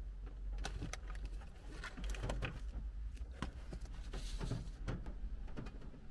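Paper being handled: an envelope and sheets of paper opened and leafed through, giving irregular crinkles, taps and a short rustle, over a low steady hum.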